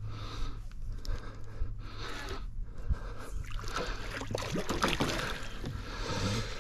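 Water splashing and trickling beside a small fishing boat, over a steady low hum; the splashing gets busier about halfway through.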